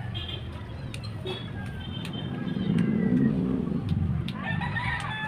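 A motor vehicle passing on the street, its low engine rumble swelling to its loudest about three seconds in and then fading, with a few light clicks and a brief voice near the end.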